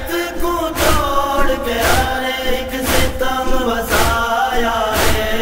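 A noha, a Shia lament, chanted in long drawn-out phrases over a steady beat that falls about once a second.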